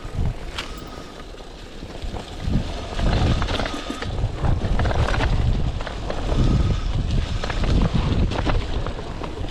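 Cyclocross bike ridden off-road: wind buffeting the microphone and tyres rolling over dry leaves and pine needles, with frequent sharp rattles and clicks from the bike over bumps.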